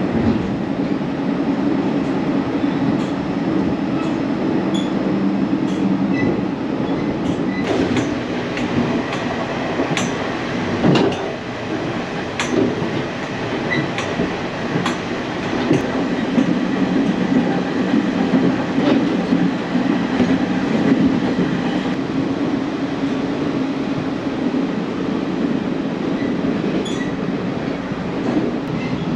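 Passenger train running along the track: a steady rumble with scattered sharp clicks from the wheels over the rails, easing off for a few seconds in the middle before building back up.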